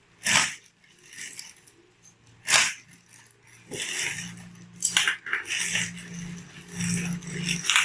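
Plastic packaging crinkling and rustling as an action figure's parts are unwrapped by hand, with several sharp crackles and softer rustling in between.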